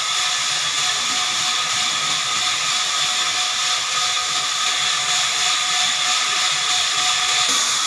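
Large horizontal band sawmill running: a steady high hiss with a few held whining tones, one of which drops out near the end.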